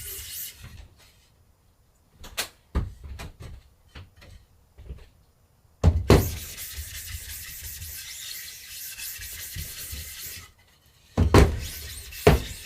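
Silkscreen plate-making work sounds: a steady hiss that stops just under a second in and runs again from about six to ten seconds. Between the two stretches come scattered clicks and knocks of handling, with loud knocks about six seconds in and twice near the end.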